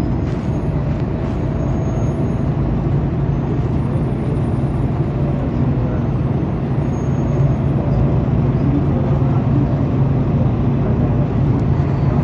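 Diesel engine of a Mercedes-Benz O-500UA articulated bus (Caio Mondego HA body) running with a steady low drone, growing slightly louder about eight seconds in.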